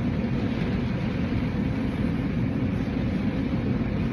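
Steady low rumble of a vehicle, the even drone of a car heard from inside.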